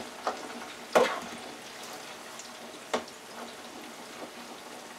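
French fries sizzling steadily in hot oil in a small electric deep fryer while they are stirred. A few sharp knocks against the metal, the loudest about a second in and another near the three-second mark.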